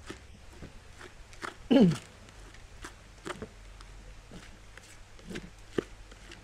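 Koi feed pellets coated in sticky medicine paste being stirred in a plastic bucket by hand and with a metal spoon: scattered crunching and clicking. About two seconds in, a loud short sound drops sharply in pitch.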